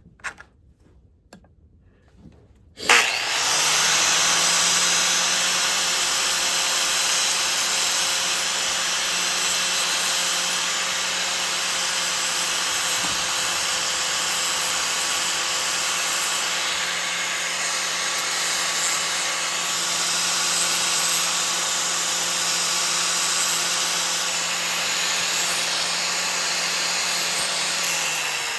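Corded electric grinder switched on about three seconds in and running steadily while trimming a 3D-printed plastic phone mount down to size, then starting to wind down, its pitch falling, near the end. A few light clicks of handling come before it starts.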